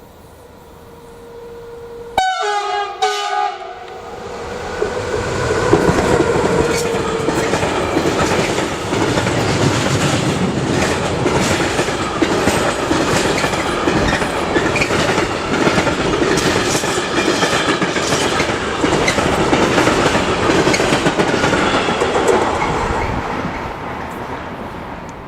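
A train sounds two short horn blasts about two seconds in, then passes close by. Its wheels clatter over the rails for some twenty seconds before it fades away near the end.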